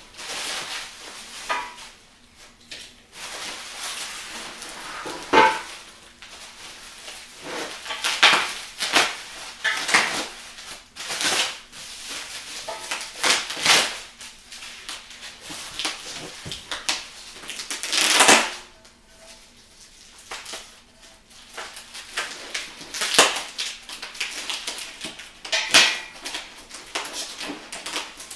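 Plastic packing wrap crinkling and rustling as a knife cuts and tears it open, with irregular louder crackles and rips.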